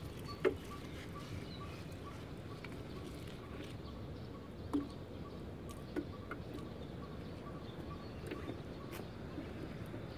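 Steady low outdoor background noise with a faint repeating high tick, broken by a few short, faint knocks.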